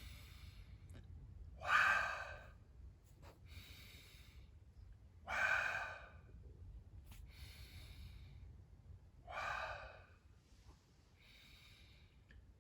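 A man breathing deeply and audibly during a breathing exercise. There are three loud rushes of air about every three and a half seconds, each followed by a softer one.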